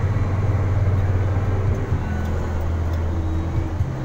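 A vehicle's engine running while it drives, heard from inside the cab as a steady low hum. The pitch steps down a little about two seconds in and rises again near the end.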